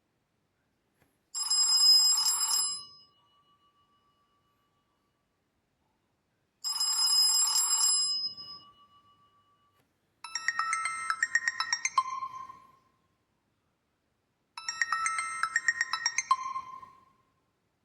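Built-in tones of a Reeder P13 Blue smartphone played one at a time, with silence between them. One short chime ending on a held note sounds twice, then a different, busier jingle of quick notes sounds twice.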